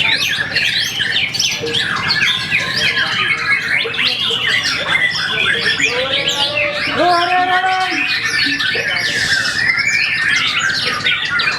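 A caged songbird singing a fast, unbroken, varied song of rapid chirps and trills, packed with mimicked calls of other birds. A lower, held whistled phrase comes in a little past the middle.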